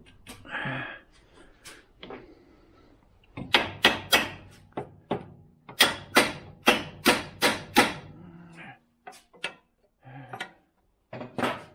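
Repeated hard blows of a hammer on metal: a few strikes about three and a half seconds in, then a steady run of about eight strikes, roughly three a second, followed by a few lighter knocks.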